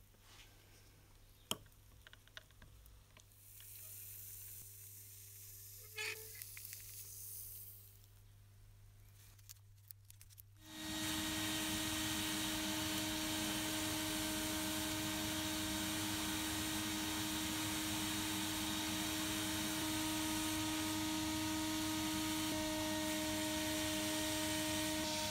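Faint hiss with a few small clicks. Then, about 11 seconds in, a sandblasting cabinet starts up: the steady, loud hiss of the abrasive blast with a steady motor hum under it, as small locomotive parts are blasted.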